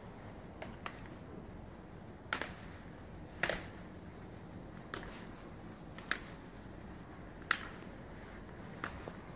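Slow footsteps, hard shoe soles clicking on stone paving and steps, a sharp click every second or so over a steady low background.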